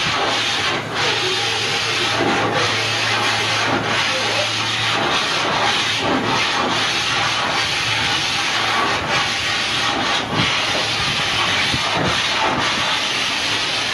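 Two-cylinder steam engine of the paddle steamer P.S. Adelaide running under way, giving a steady hiss of steam.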